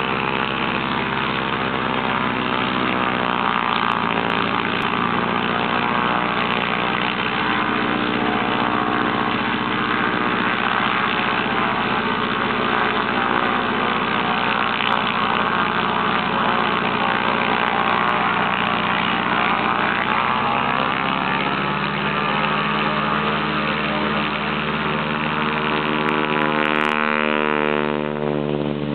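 North American SNJ Texan trainer's radial engine running at low power on the ground, propeller turning. The engine note changes a little past twenty seconds in and rises as the engine revs up near the end.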